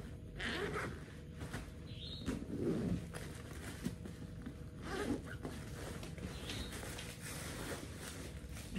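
Zipper on a canvas backpack being pulled back and forth in several short runs, with the rustle of the bag being handled.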